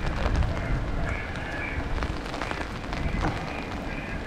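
Steady rain falling on an umbrella and wet paving, with footsteps. Faint high tones come and go through the rain.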